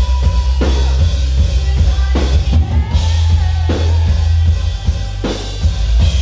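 Live pop-rock band playing loud, with heavy bass and a drum kit striking big accents about every second and a half, and a long, slightly wavering note held over the top.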